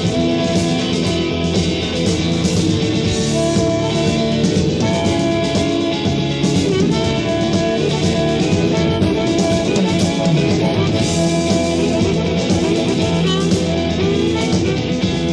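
Live rock band playing an instrumental passage: guitars, bass guitar and a drum kit, with no singing.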